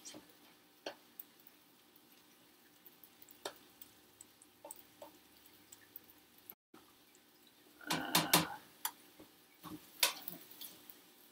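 Spatula stirring shallots and pepper in a frying pan: sparse light taps and crackles, with a short cluster of louder knocks about eight seconds in and another near ten.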